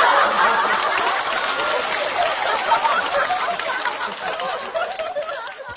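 A studio audience laughing together at a punchline, many voices at once, dying down toward the end.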